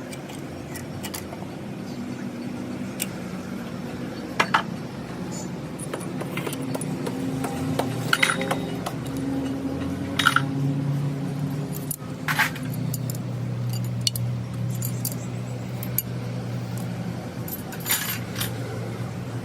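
Metal tools and parts clinking and knocking now and then during hand work on a bulldozer engine, over a steady low hum.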